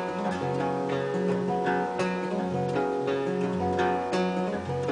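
Solo steel-string acoustic guitar playing an instrumental passage: picked chords over a bass note that changes every second or so.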